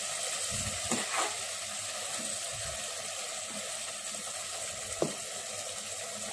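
Stuffed brinjal curry with freshly added water sizzling steadily in a metal pot while a metal spoon stirs the gravy gently. The spoon clicks against the pot about a second in and knocks once more sharply near the five-second mark.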